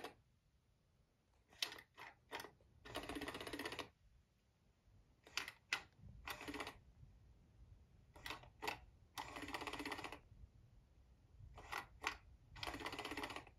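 Electronic interactive cat toy working its feather wand: two or three short clicks, then a motor whirr of just under a second. The cycle repeats four times, about every three and a half seconds.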